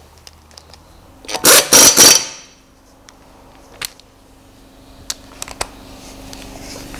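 Two short loud bursts from a rattling workshop power tool about a second and a half in, followed by a few light clicks and a faint steady hum.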